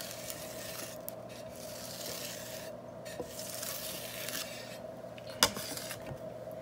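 Metal bench scraper rubbing buttercream smooth against the side of a cake turning on a cake turntable, a soft scraping in long strokes with short pauses between them. A single sharp knock about five seconds in.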